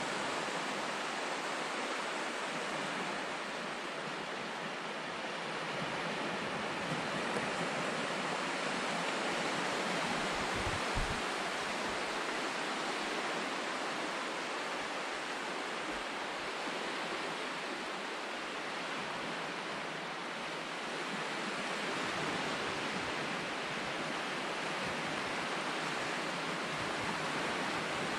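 Small waves breaking and washing up a sandy beach, a steady surf hiss that rises and falls gently. There is a brief low bump about eleven seconds in.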